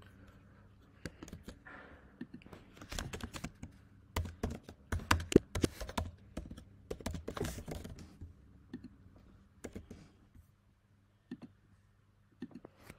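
Typing on a computer keyboard: an uneven run of quick key clicks, thinning out to a few single clicks near the end.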